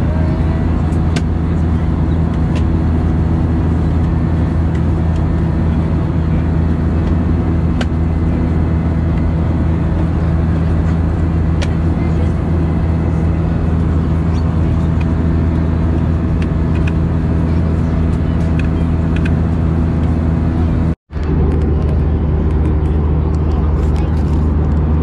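Steady low drone of an Airbus A320-232's IAE V2500 engines heard inside the cabin, with several steady humming tones under a broad rush. About 21 seconds in it cuts out for a moment and comes back with its tones slightly shifted.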